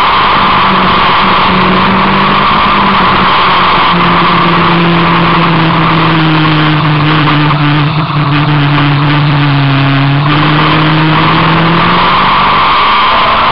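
A vehicle engine running at speed on a race track under a steady rushing noise. Its pitch falls slowly through the middle as it slows, then rises again near the end. A spell of rapid knocks or rattles comes about halfway through.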